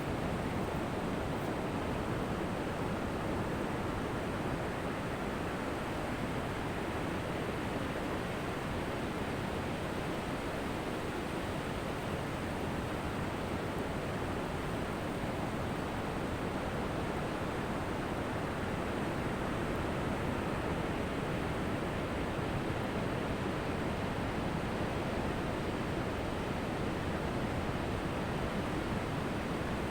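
Ocean surf: a steady, even wash of breaking waves, with no single wave standing out.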